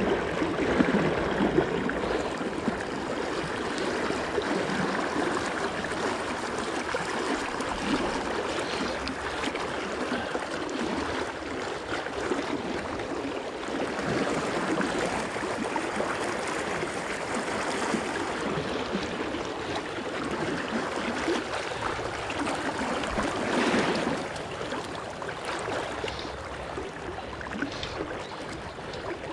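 Shallow, fast river running over a rocky bed: a steady rushing of water.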